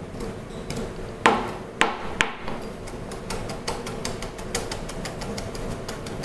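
Kitchen knife chopping fresh rosemary on a plastic cutting board: a few harder knocks in the first two seconds, then a quick, even run of blade taps.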